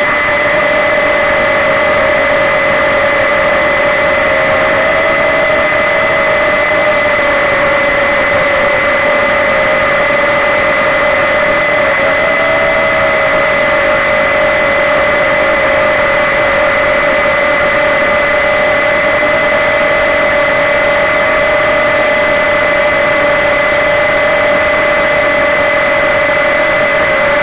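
Walkera QR Ladybird V2 micro quadcopter's small electric motors and propellers, a steady high whine that wavers slightly in pitch as it flies, heard up close from a camera carried on the craft.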